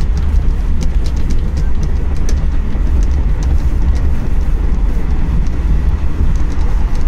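Steady low rumble of a moving vehicle heard from inside it, with running noise and many small clicks and rattles throughout.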